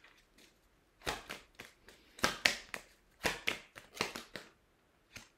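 Oracle cards being handled and drawn from a deck: short clicks and taps of card edges in small clusters, a few at a time.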